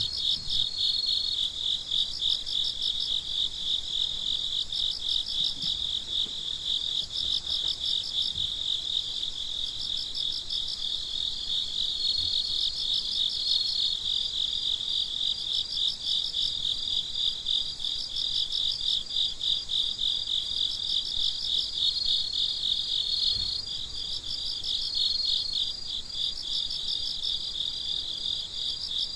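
Night chorus of crickets: dense, continuous chirping, overlaid with rhythmic chirp trains about once a second and, a few times, a held steady trill.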